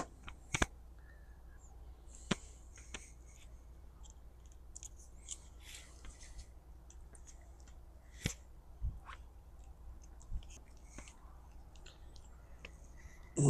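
Faint, scattered clicks and short scratching sounds of hands and small tools working wires and plastic plug parts while a replacement plug is fitted to a camper power cord.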